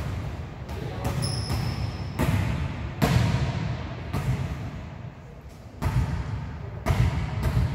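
Volleyball thuds echoing in a gym: a string of sharp hits and bounces every second or so, with a brief high steady tone about a second in.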